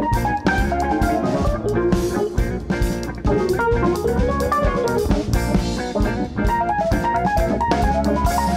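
A live rock band playing an instrumental zeuhl/progressive rock passage: electric guitar, keyboards and drum kit together, with a melodic line bending up and down in pitch over steady drum hits.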